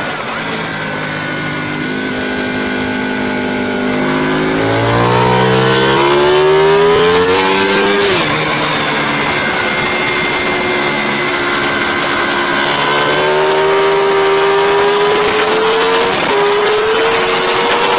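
Racing motorcycle engine heard from on board at speed, with steady wind rush. The revs climb for several seconds, drop sharply at an upshift about eight seconds in, then hold and rise slowly, with another brief drop near the end.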